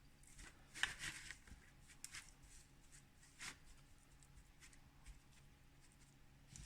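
Faint, scattered rustling and scraping of damp, expanded soil grow mix being scooped and packed into a planter, a few soft scrapes over near silence.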